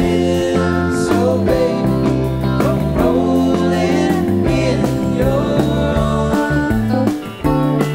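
A live rock band playing, with electric guitars, bass, keyboards and drums and a lead vocal sung over them. The sound drops briefly about seven seconds in.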